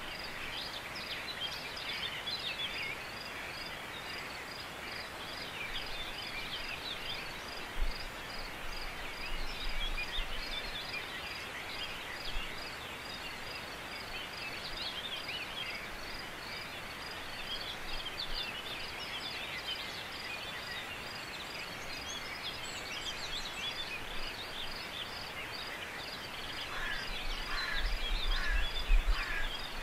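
Natural outdoor ambience of small birds chirping and singing, over a high chirp repeated at an even pace. Low gusts of wind buffet the microphone about eight seconds in and again near the end.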